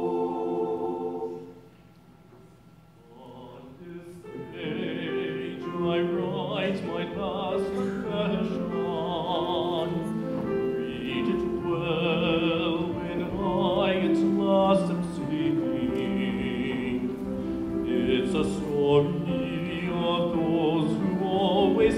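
A choir holds a final chord that cuts off about a second in; after a short hush, piano accompaniment and a solo singing voice with wide vibrato begin about four seconds in and carry on.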